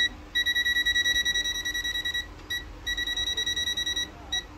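Richmeter 113A multimeter's buzzer beeping in non-contact voltage (NCV) mode as it senses live AC voltage at a plugged-in power strip. A high-pitched beep repeats rapidly, about eight times a second, in two runs with short breaks between them.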